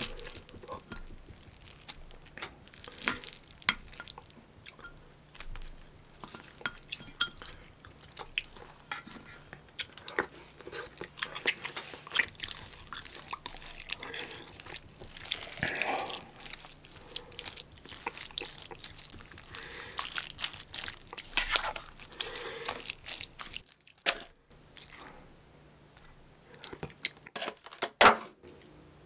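Close-miked eating sounds: rice being stirred and mashed through kimchi stew in a metal pot with chopsticks and a wooden spoon, with wet squelching, small utensil clicks and some chewing. A sharp clack near the end is the loudest sound.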